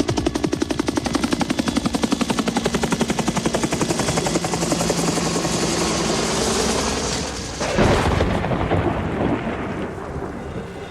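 Storm sound effects: a rapid chopping pulse, about ten beats a second, that blurs into a rushing noise. About eight seconds in comes a sudden loud thunderclap that rumbles away.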